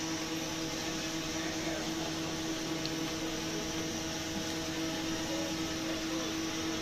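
Steady machine hum at a constant pitch, the drone of room machinery running in the background, with no change in level.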